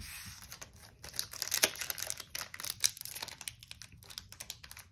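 Foil wrapper of a Pokémon booster pack crinkling as it is handled and torn open by hand: a dense run of small, sharp crackles.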